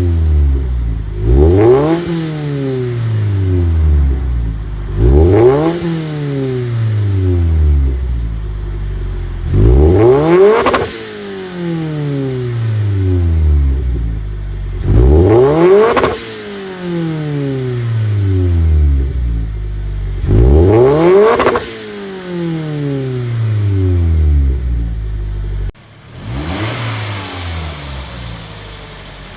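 Turbocharged Scion FR-S flat-four engine (Speed By Design SBD500X kit) being revved hard about five times. Each rev climbs quickly and then falls back over a few seconds. Near the end the sound cuts abruptly to a quieter, steadier engine note.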